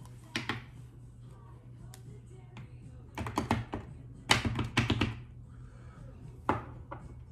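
Several quick clusters of plastic taps and clicks from a Coty Airspun loose-powder tub being opened and tapped, the loudest group a little past the middle.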